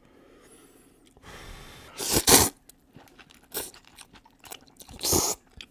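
A man slurping and chewing instant ramen noodles from chopsticks, picked up by a close microphone. There are two loud slurps, about two seconds in and near the end, a shorter one between them, and soft chewing.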